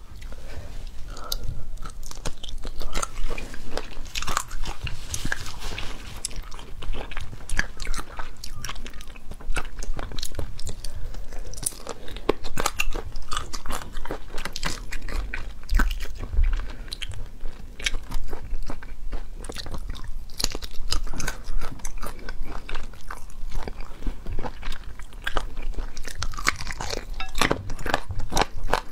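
Close-miked chewing and biting on braised chicken feet: a constant irregular run of wet clicks and small crunches as skin, tendon and cartilage are chewed.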